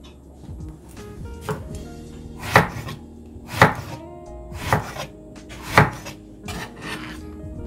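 Chef's knife slicing long eggplants into thick rounds on a cutting board, about one cut a second, each ending in a sharp knock of the blade on the board.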